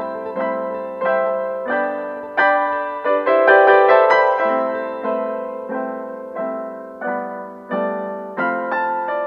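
Background piano music: gentle piano notes and chords struck at an even pace, each ringing and fading before the next.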